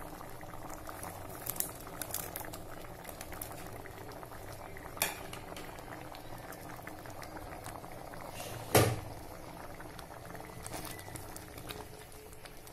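Thick pea-and-tomato curry gravy bubbling at a steady boil in a pan, a dense spitting and popping, with two sharp knocks about five and nine seconds in, the second the loudest.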